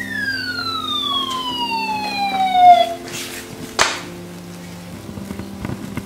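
Toy fire truck's electronic siren sounding one long falling wail that fades out about three seconds in. A sharp pop follows about a second later.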